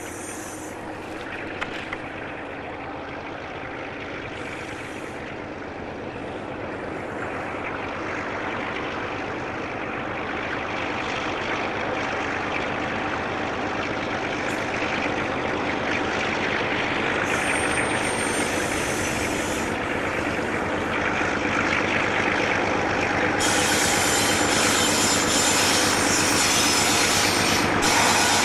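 Silverton Alco diesel-electric locomotive hauling a short train of galena ore wagons as it approaches, its engine working under load and growing steadily louder. A high hiss joins near the end.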